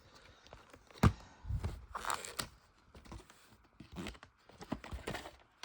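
Plastic shrink-wrap being torn and rustled off a sealed VHS tape, with a sharp click about a second in.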